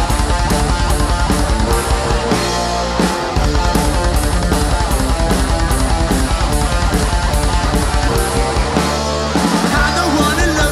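Heavy metal band playing: distorted electric guitars and bass over a fast, steady kick-drum beat with cymbals. Near the end the drum pulse briefly drops out.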